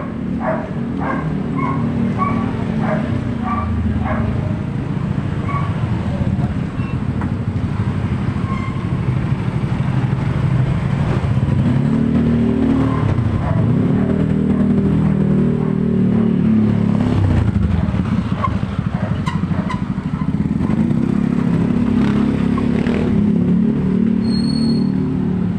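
Small motorcycle engines running and passing close by on a street, a steady engine drone that swells and falls in pitch as bikes go past, around the middle and again near the end.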